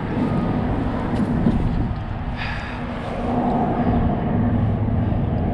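Road traffic running steadily: a continuous low rumble with a faint engine drone, and a brief higher noise about two and a half seconds in.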